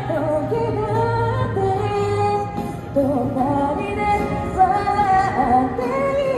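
A woman singing into a microphone over backing music, amplified through a small street speaker.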